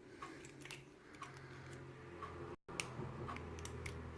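Faint, scattered small metallic clicks of a KIK lock cylinder and its key being handled, a few sharp ticks spread irregularly over a low background hum.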